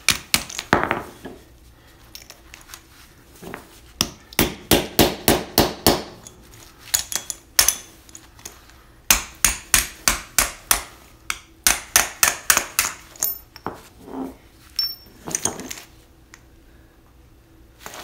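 Hammer striking a steel punch held against a Viro Blocca Catena bike lock's hardened lock body, sharp metallic blows in runs of about three a second, broken by short pauses. This is a destructive attack to drive past the lock's ball bearing and lift the shackle, and the punch tip is being torn up by it.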